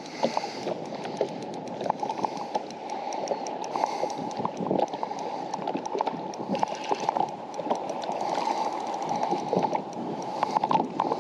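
Water lapping and gurgling against a boat's hull, with many small irregular ticks and clicks.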